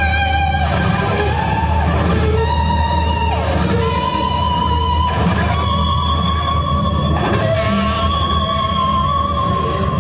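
Electric guitar playing long sustained notes with a slight vibrato, moving to a new pitch every few seconds, over a steady low drone.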